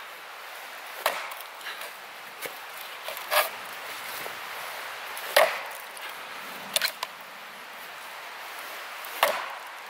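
Firewood being chopped by hand: about five sharp blows into wood, roughly two seconds apart, with lighter knocks between them.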